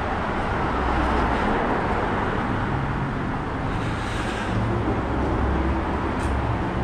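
Steady low rumble of vehicle engines.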